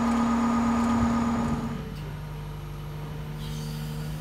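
Mobile crane's diesel engine running steadily under load; about two seconds in it drops to a quieter, lower steady hum.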